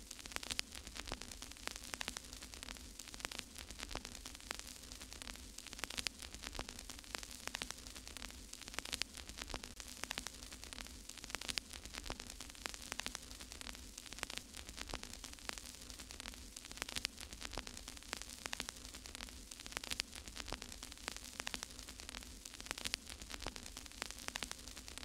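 Steady crackling static: a hiss full of irregular clicks, with a low hum underneath.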